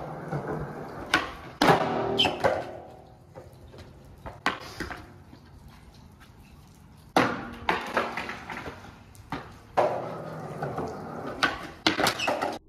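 Skateboard rolling on concrete, with sharp wooden claps of the tail popping and the board landing, several times.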